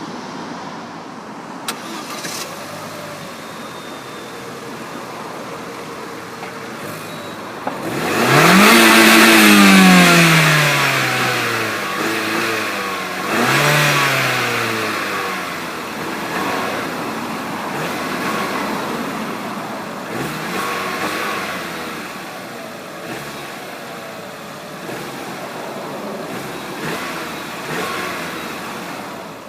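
Vauxhall Corsa VXR's 1.6-litre turbocharged four-cylinder starting about a quarter of the way in: the revs flare up and settle back. A second, shorter rev follows a few seconds later. The engine then idles through the exhaust, with a few small blips of the throttle.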